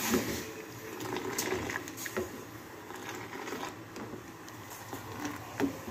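Metal ladle stirring milky tea in an aluminium saucepan on a gas burner: scattered scrapes and clinks of the ladle against the pan over a steady hiss.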